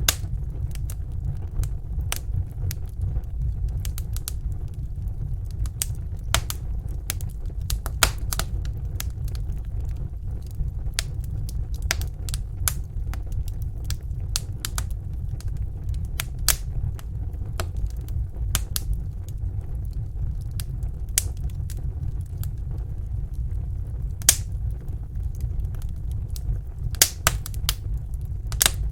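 Wood campfire burning, crackling with irregular sharp pops, a few louder snaps among them, over a steady low rumble.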